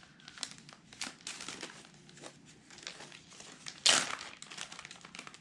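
Paper rustling and crinkling as a pile of old papers and cards is handled and sorted, a string of small crackles with one louder crinkle about four seconds in.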